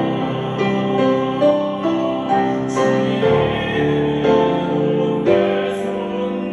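Music: a slow Christian praise song with piano accompaniment.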